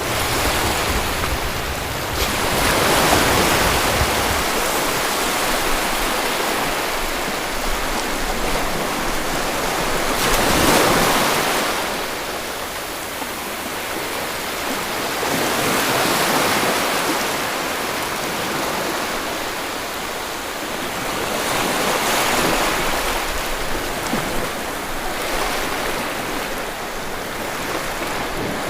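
Sea waves washing onto a shore in a steady rush that swells and ebbs about every five to six seconds.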